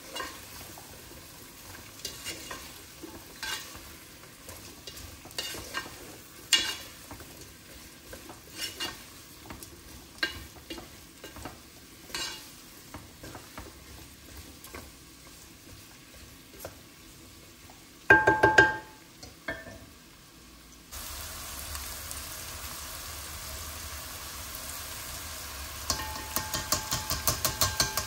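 A wooden spoon stirs diced zucchini and carrots in a granite-coated pot, with scattered clicks and scrapes against the pot over a faint sizzle of the vegetables in oil. About two-thirds in there is a brief loud rattle. Near the end comes a fast run of ringing taps as a mesh strainer of lentils is knocked against the pot.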